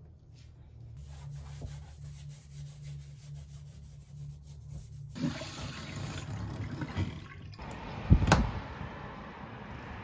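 Tap water running into a bathroom washbasin. It is faint at first, then gushes louder about five seconds in, with a loud thump about eight seconds in.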